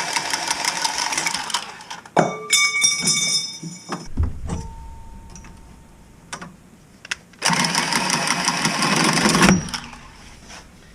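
A handheld power tool runs in two bursts of about two seconds each: one at the start and one about seven and a half seconds in. Between them, a little after two seconds in, comes a metallic clank that rings briefly, followed by a dull knock.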